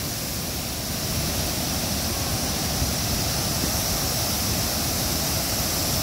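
Several waterfalls pouring into a pool: a steady rush of falling water.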